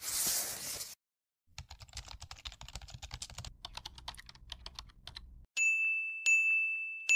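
Animated end-screen sound effects: a short whoosh, then about four seconds of rapid irregular clicking over a low rumble, then three bright dings about three-quarters of a second apart, each starting with a click and ringing out.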